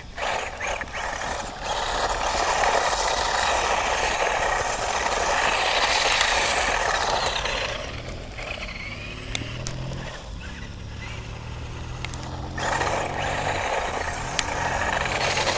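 Radio-controlled car skidding in circles on loose dirt: a long gritty hiss of spinning tyres throwing dirt, then a lower motor whine that rises and falls with the throttle, and another burst of tyre scrabble near the end.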